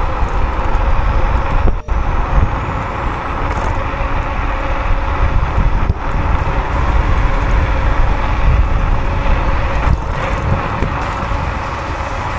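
Steady wind rush and road noise from an electric scooter riding at speed, with heavy low wind rumble on the microphone. A faint thin whine rises slowly in pitch through the first half.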